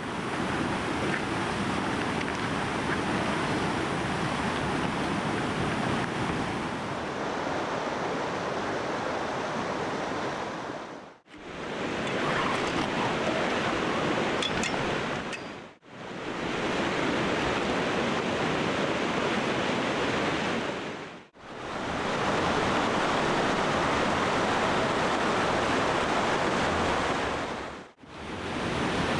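River water rushing past in a steady, even noise, dipping briefly four times where clips are cut together.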